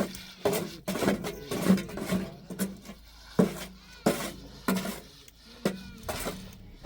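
Repeated sharp knocks, a dozen or so strikes at an uneven pace of roughly one or two a second, each ringing briefly.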